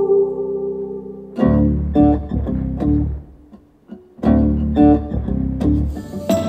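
Recorded song played back over a PA system in a hall: a held chord for about a second and a half, then rhythmic strummed guitar chords over bass, breaking off briefly about halfway through before starting again.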